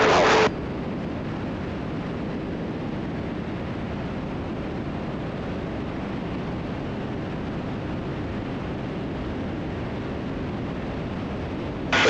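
Steady cockpit noise of a twin-engine Cessna T310R in flight: an even rushing hiss of engines and airflow with no distinct engine tone. It takes over when louder audio cuts off abruptly about half a second in, and the louder audio returns right at the end.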